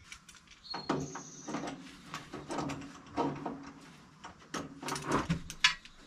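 Metal knocking, clanking and scraping as the twisted blade guide of a Woodland Mills HM130 MAX bandsaw mill is worked on by hand, with a sharp clank about five and a half seconds in.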